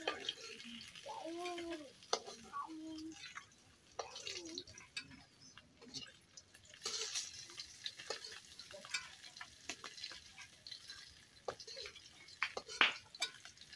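A metal spatula stirring and scraping in a large iron wok while the food in it sizzles and fries, with scattered clinks of metal on metal and one sharper clink near the end.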